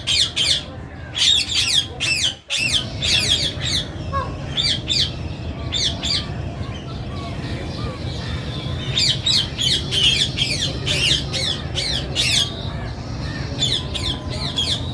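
Many birds squawking and chirping in quick, repeated high calls, thick near the start and again in the second half, over a steady low background hum.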